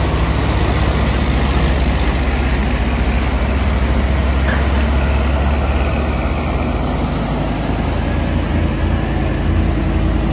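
A heavy truck's diesel engine running with a steady, deep low note that shifts slightly about seven seconds in.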